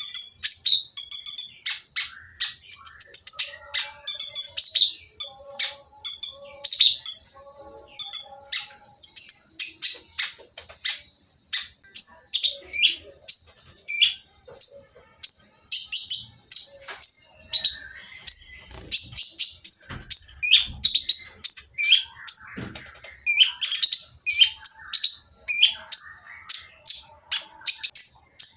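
Kolibri ninja (konin) sunbird singing a noisy, harsh song of rapid high-pitched chirps and trills with short breaks. This is the kind of song bird keepers play to provoke quiet konin into answering.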